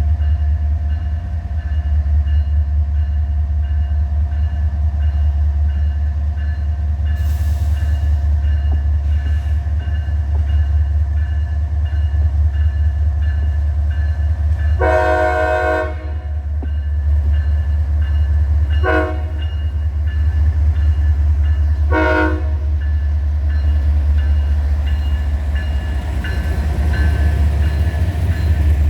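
A freight diesel locomotive's horn sounds a blast of about a second, then two short toots about three seconds apart. Underneath is the steady low rumble of the moving train.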